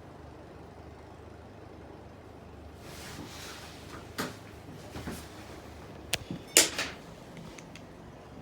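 Harbor Breeze Merrimack ceiling fan running on high with a steady hum of motor and moving air. From about three seconds in there are a few sharp clacks and rustles, the loudest near the end.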